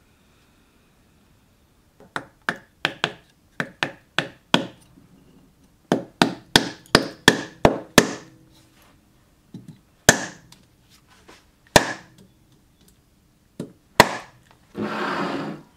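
Wooden mallet knocking a wooden wedge into the handle end in a cobbler's hammer head to lock the head on. The blows come as sharp knocks, first in quick runs of about three a second, then as a few single blows spaced a second or two apart. A short burst of noise lasting about a second follows near the end.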